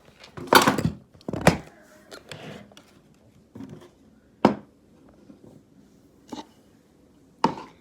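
A handful of separate knocks and thumps as small objects are handled and moved about, with quiet handling noise between them; the two loudest come in the first second and a half.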